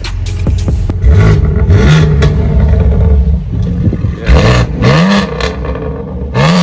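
BMW 118i engine revved in quick blips through an aftermarket Scorpion exhaust, the note rising sharply with each blip, about five times.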